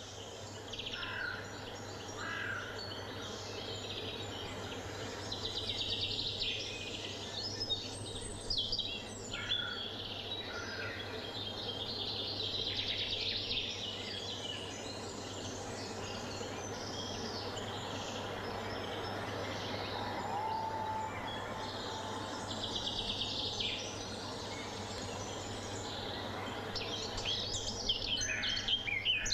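Forest ambience: small songbirds chirping and trilling on and off over a steady background hiss with a low hum beneath.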